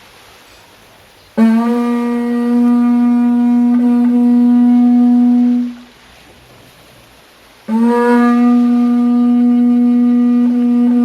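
Ox horn blown twice: two long, steady notes of about four seconds each, both starting with a slight upward slide in pitch.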